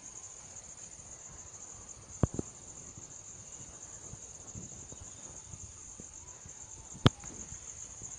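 Insects chirring steadily at a high pitch, with sharp clicks cutting through: a quick double click about two seconds in and a single one about seven seconds in.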